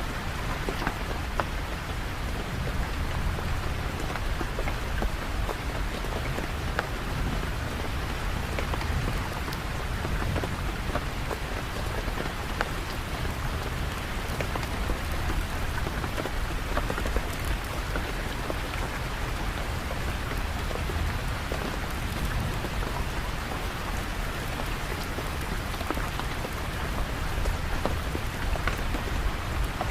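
Steady rain falling: an even, dense hiss with individual drops ticking through it.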